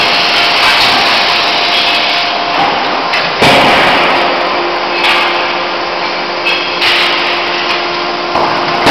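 Loud, steady machinery noise of a forging shop, a dense hum with a faint steady tone, jumping suddenly louder about three and a half seconds in.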